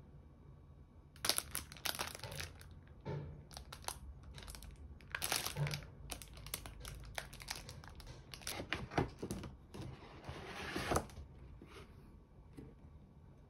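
Plastic wrapping crinkling and rustling as it is handled, in a string of sharp crackles that die away a couple of seconds before the end.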